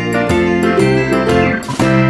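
Instrumental background music, its notes changing several times a second.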